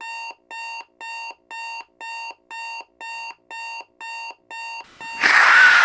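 Digital alarm clock beeping, about two short buzzy beeps a second. Near the end a louder, noisy sound with a falling tone breaks in over the beeping.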